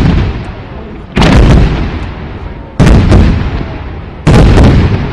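Fireworks shells going off in a steady series: four loud booms about a second and a half apart, each dying away over about a second.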